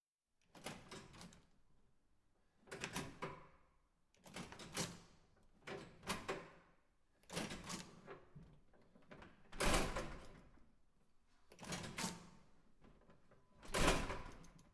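Push-bar (panic-bar) door operated again and again: about eight separate clacks of the bar and latch, each a quick double or triple metallic clack with a short fading tail, roughly every two seconds. The two near the end are the loudest.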